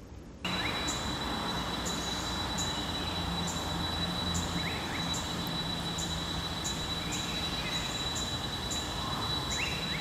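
Outdoor ambience dominated by insects: a steady high-pitched drone with a regular short chirp about three times every two seconds, cutting in about half a second in. A few brief chirps from small birds and a low rumble sit underneath.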